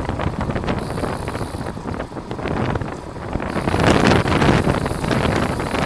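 Wind buffeting the microphone of a camera on a bicycle moving at race speed, rising and falling in gusts and loudest a little past the middle.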